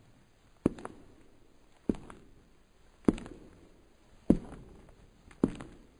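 Slow, even footsteps of hard shoes on stone pavement, five steps a little over a second apart. Each step is a sharp strike followed at once by a lighter tap.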